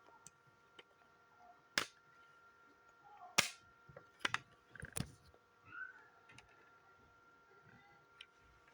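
Sharp clicks and knocks of the hard plastic shells and parts of fire alarm horn strobes being handled, the two loudest about two and three and a half seconds in, with smaller clicks following.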